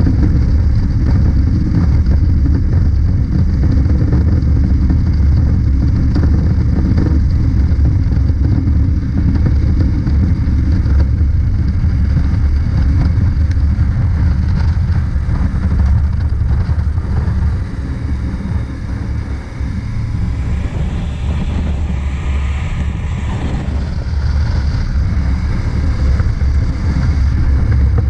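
Honda CB500X parallel-twin motorcycle cruising on the highway, heard from the rider's position: heavy wind rumble on the microphone over the engine's steady drone. About two-thirds through, the rumble eases for a few seconds and a higher sound rises and falls in pitch before the steady rumble returns.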